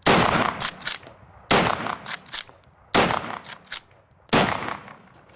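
Four rifle shots, each about a second and a half after the last, from a big-bore lever-action rifle. Each shot is followed by two quick sharp metallic clacks as the lever is worked to cycle a new round.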